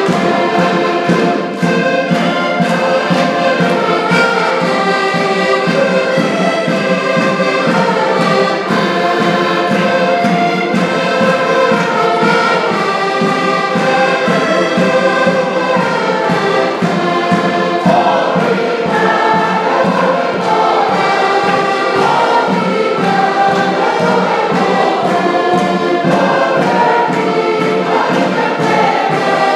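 Portuguese folk music played live on several diatonic button accordions, with a bass drum keeping a steady beat and a group of voices singing along.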